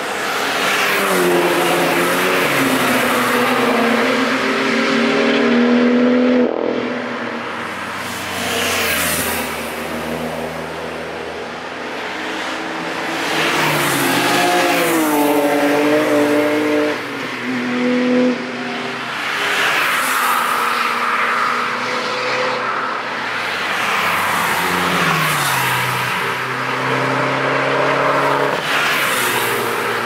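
Several cars driving past one after another, their engines revving up in pitch as they accelerate out of a corner, with pauses where they shift gear.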